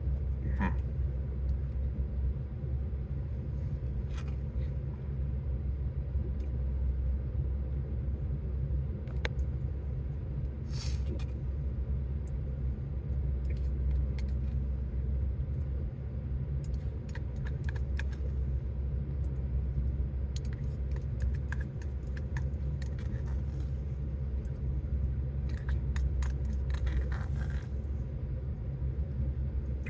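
Steady low rumble inside a truck cab, the engine idling with the heater running, with scattered small clicks and rustles.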